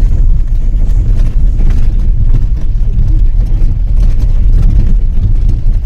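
Low, steady rumble of a motor vehicle driving, heard from inside as a passenger rides along a forest road.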